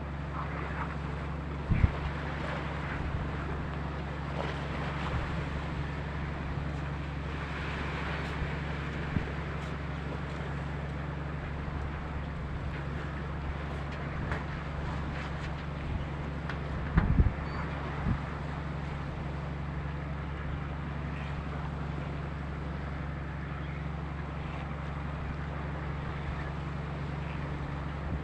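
Boat engine running with a steady low drone under the rush of wind and water. Wind buffets the microphone with two brief low thumps, one near the start and one a little past halfway.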